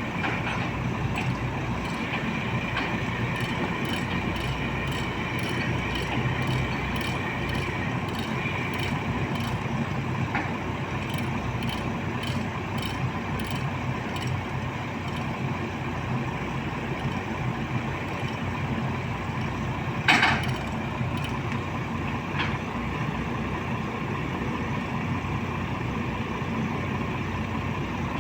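A vibratory roller's diesel engine running steadily as the roller is loaded onto a truck, with light metallic clicks and rattles. A short, sharp burst of hiss comes about twenty seconds in.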